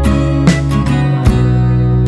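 Background music led by acoustic guitar, with strummed chords struck about every half second to second.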